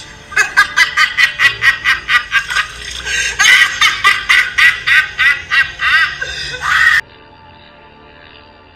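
A person's loud, high-pitched cackling laugh in rapid, even "ha" pulses, about five a second, cut off abruptly about seven seconds in, leaving quiet background music.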